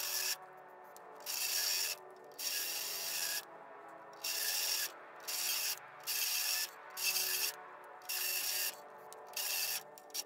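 Repeated rasping strokes of a hand tool working metal at a stuck car door hinge, about one stroke a second with short pauses between.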